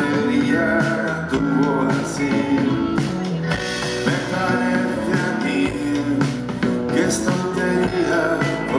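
Rock band playing live: two electric guitars and a drum kit, with a man singing.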